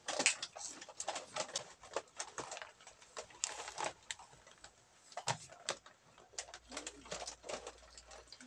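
Plastic snack packets crinkling and rustling in children's hands as they are opened and handled, with crunching of the snacks being eaten: many short, irregular crackles.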